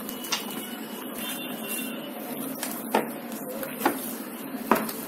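Hand mixing and kneading minced mutton with mustard oil in a glass bowl: soft working of the wet mince, with four sharp clicks, mostly in the second half, over a steady background hiss.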